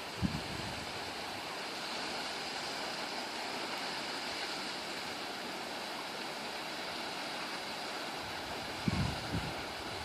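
Waterfall rushing with a steady, even sound of falling water. Low buffets of wind on the microphone come just after the start and again about nine seconds in.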